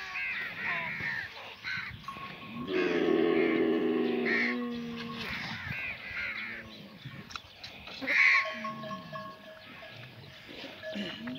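Dromedary camel herd: one camel gives a long, low drawn-out call about three seconds in, while birds call on and off over it.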